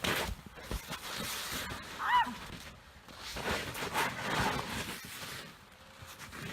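Crunching and scraping on icy snow in two stretches, with one short high-pitched yelp about two seconds in.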